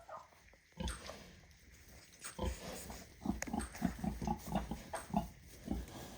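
Pig grunting: a quick run of short, low grunts, about four or five a second, through the second half.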